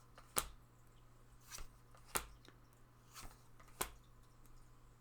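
Tarot cards being handled: a string of short sharp snaps and taps, about six in five seconds, the sharpest about half a second in, over a faint steady hum.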